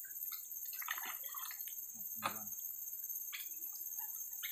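Faint drips and small splashes of water, with one fuller splash about two seconds in, over a steady high-pitched hiss.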